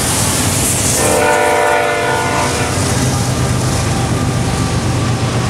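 Freight train passing close by: the trailing BNSF GE diesel-electric locomotives drone low as they go by, then the double-stack container well cars roll past on the rails. About a second in, a chord of several steady tones sounds for under two seconds.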